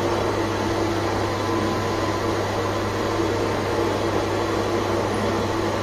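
Manual metal lathe running with a steady, even hum from its motor and spindle.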